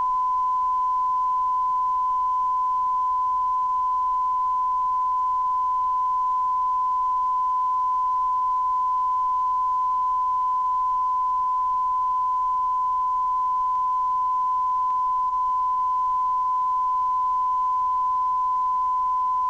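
Steady 1 kHz sine test tone of a television test card, holding at one unbroken pitch and level over faint VHS tape hiss.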